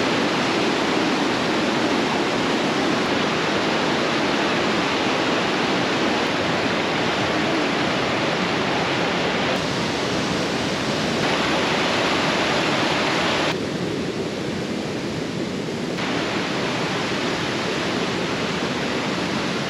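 Waterfall pouring steadily, a loud, even rush of falling water. It turns a little quieter for a couple of seconds about two-thirds of the way through.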